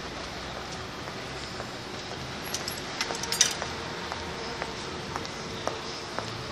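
Azerbaijani qəpik coins fed into a street parking meter's coin slot, clinking and dropping inside the machine. A cluster of sharp metallic clinks comes about halfway through, then lighter ticks. The meter takes the small 1, 3 and 5 qəpik steel coins.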